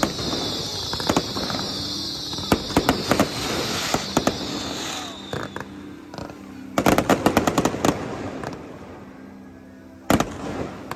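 Aerial fireworks bursting: scattered sharp bangs and crackles that come thickest in a rapid cluster about seven seconds in and again near the end, over a high hiss that slowly drops in pitch through the first half.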